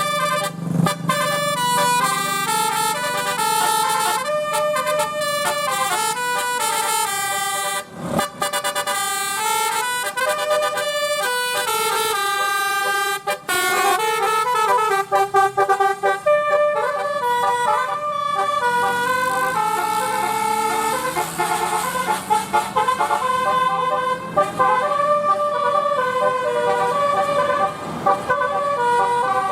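Bus 'telolet' multi-tone air horn playing a string of melodies, one held note stepping to the next, with a couple of short breaks.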